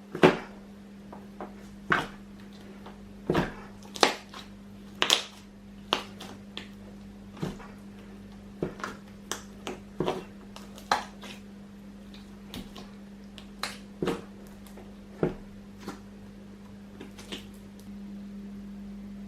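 Slime being poked and squeezed, giving uneven sharp sticky clicks and pops, about one a second and growing fainter toward the end, over a steady low hum.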